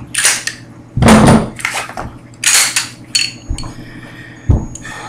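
Handling noise close to the microphone: a series of knocks, scrapes and rustles, with a heavy thump about a second in and a sharp click near the end, as a pistol and holster are handled and set down.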